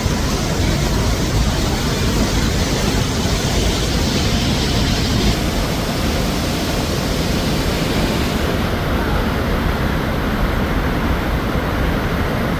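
Steady, loud rush of a river waterfall heard close up: Sheep River Falls pouring over its rock ledge.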